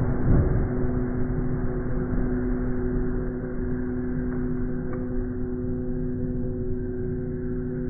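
Dutch level crossing warning bell ringing steadily while the barriers are down, over a low rumble that eases off in the first half-second.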